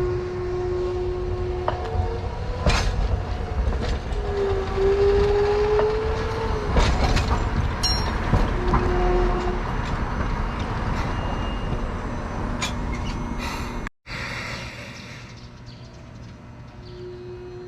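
Hakodate city streetcar running on its rails. A steady whine rises in pitch for a couple of seconds in the middle, and sharp clacks and knocks come from the wheels and track. After a break about 14 seconds in, the tram sounds quieter.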